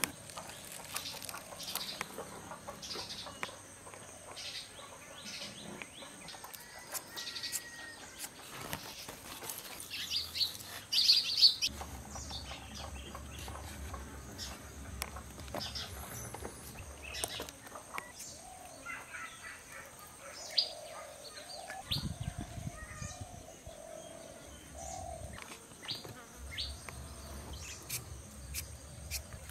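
Short scraping and slicing sounds of vegetables being peeled and cut on a boti, a curved blade held down under the foot, with a run of sharper scrapes about ten seconds in. Birds chirp in the background.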